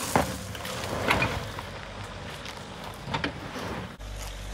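Mahindra Thar's petrol engine running at low revs as the SUV crawls over a dry dirt slope, with three sharp knocks or crunches. Near the end the sound cuts to a louder, deeper engine rumble.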